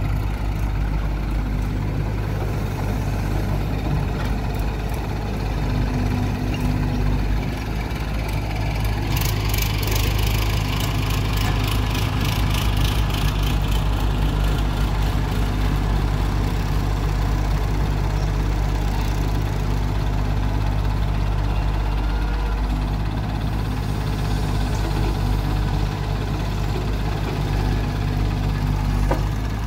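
Diesel engines of a Mahindra tractor idling and a Tata Hitachi EX70 excavator working, a steady low hum, with a stretch of fast rattling about a third of the way in.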